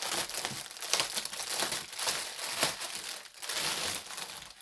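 Packaging crinkling and rustling as it is handled, in a dense run of short crackles.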